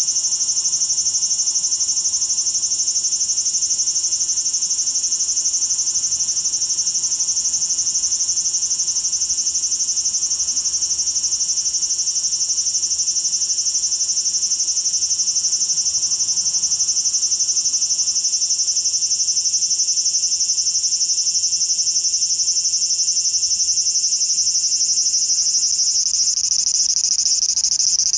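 Large brown cicada (aburazemi) singing: a continuous, high, sizzling drone that swells a little near the end.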